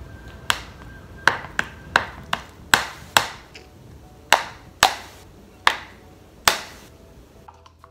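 About a dozen sharp, uneven taps and slaps from a wooden stir stick and homemade glue-and-detergent slime against a plastic tub while the slime is mixed and lifted. They stop about two-thirds of the way through.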